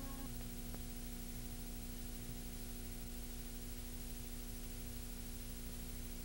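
Steady hiss with a low hum in a pause between pieces of music, after a held chord dies away right at the start.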